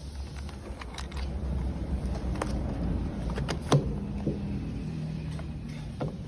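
MoYu WRM V9 Special Edition 3x3 speed cube being turned by hand: a series of sharp, irregular plastic clicks and clacks with one louder clack near the middle, over a low steady hum.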